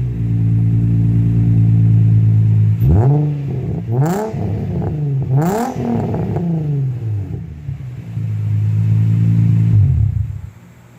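Nissan Z's engine through a straight 3-inch exhaust with a single muffler, no resonator and a 4-inch tip, idling loud, then blipped three times in quick revs a few seconds in. It settles back to idle and is switched off near the end. The exhaust resonates and is too loud.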